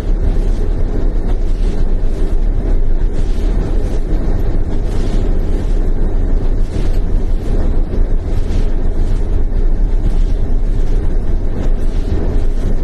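Blizzard wind blowing hard and buffeting the microphone: a loud, steady low rumble with gusts surging through it.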